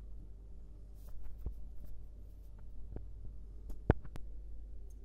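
Light scattered clicks and taps as slices of sucuk are put into a frying pan on a gas stove, with one sharper click just before four seconds in, over a low steady hum.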